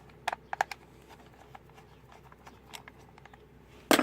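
Sharp plastic clicks and knocks from a cheap analog multimeter's case being handled to open its battery compartment: a few clicks in the first second, faint small ticks after, and one loud snap at the end.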